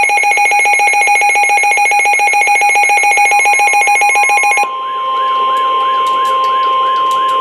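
Weather-alert alarm between NOAA Weather Radio warnings. A rapidly pulsing, shrill electronic alarm changes about four and a half seconds in to a warbling, siren-like alarm. Under it, from about three seconds in, the steady NOAA Weather Radio warning alarm tone sounds, the signal that a new severe thunderstorm warning is coming.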